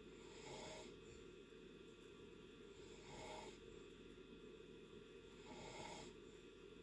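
Faint snoring of a sleeper in deep sleep: three soft, hissy breaths, one about every two and a half seconds.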